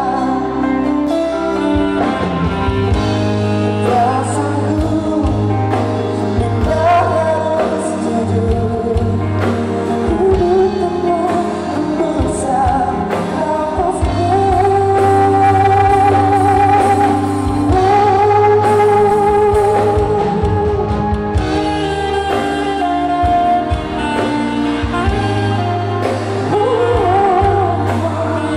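Male pop singer performing live with an amplified band of electric guitars, bass guitar, drums, keyboard and saxophones. About halfway through he holds long notes with vibrato over the steady band.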